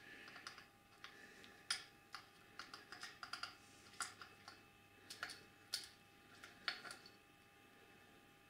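Faint, irregular small clicks and taps of metal parts being handled as the terminal post nut and end cover of a Triumph Tiger 1050 starter motor are turned and seated by hand. The clicks stop about seven seconds in.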